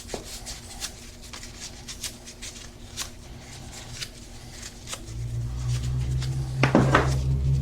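Light clicks and short scrapes of hands and tools working on battery cable connectors. About five seconds in, a low steady hum starts and keeps on, with two sharper clatters near the end.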